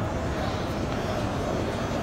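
Steady background din of a crowded exhibition hall: many voices and hall noise blending together, with no single word or event standing out.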